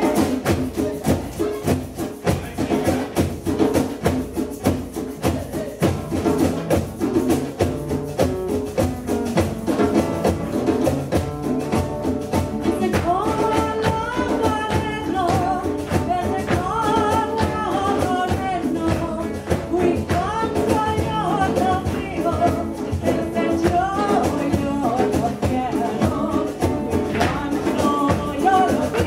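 Guajira music for a fan dance: a steady percussive beat, with a singing voice coming in about halfway through.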